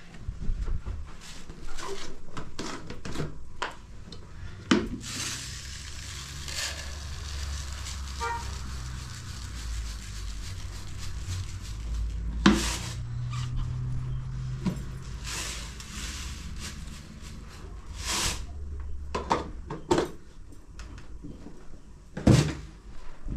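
Dry rice grains poured into a plastic basin and plastic and metal dishes handled, with a series of sharp knocks and clatters and a rustling hiss between them.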